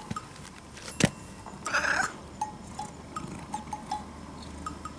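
A domestic cat gives one short meow about two seconds in, with a sharp click a second before it.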